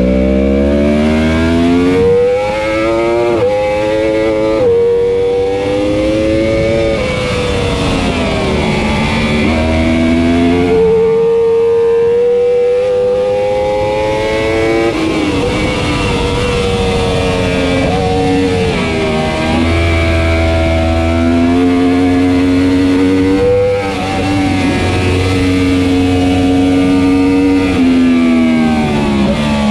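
A 2015 Yamaha R1's crossplane inline-four engine racing at full throttle. The revs climb through three quick upshifts in the first few seconds, then fall and rise again and again as the bike brakes, downshifts and accelerates through the corners.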